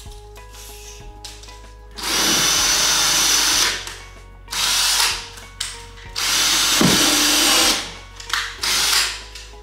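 Ryobi ONE+ 18V cordless drill/driver working into the wall in four bursts, the first and third about a second and a half long, the second and fourth shorter.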